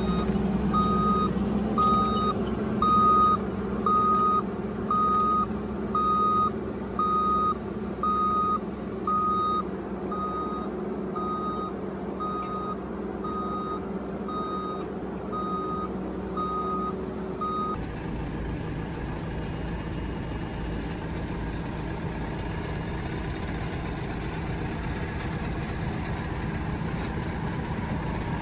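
Reversing alarm on a heavy construction machine, beeping about once a second over its diesel engine running steadily. The sound changes abruptly about 18 seconds in: the beeps stop and only the engine is heard.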